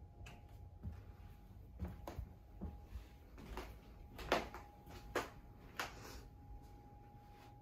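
Soft footsteps on a hardwood floor, about six steps a half-second to a second apart, over a faint steady hum.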